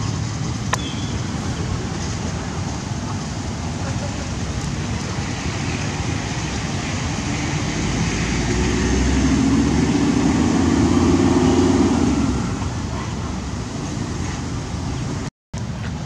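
Steady outdoor traffic rumble and hiss. A vehicle passing makes it swell from about halfway through and fade again a few seconds later.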